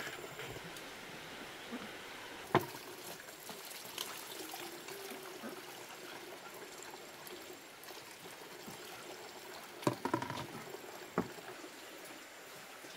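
Water poured and trickling as an aluminium pan is rinsed, with a sharp knock about two and a half seconds in and a cluster of lighter knocks about ten seconds in.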